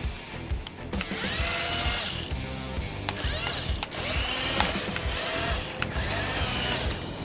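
Small electric gear motors of a 1/24 six-channel micro RC excavator whining in several bursts of about a second each as the boom, arm and turret move, the pitch sweeping as each motion starts and stops. Background music plays underneath.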